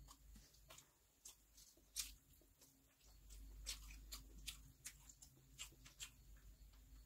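Quiet, scattered soft clicks and squelches of eating by hand: fingers mixing biryani rice against a steel plate, along with mouth sounds of chewing.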